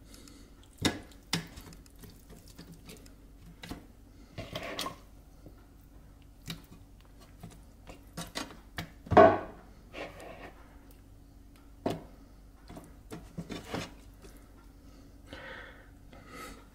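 Raw, seasoned chicken wings being dropped by hand into an air fryer basket: scattered, irregular soft slaps and small knocks against the basket and bowl, with one louder thump about nine seconds in.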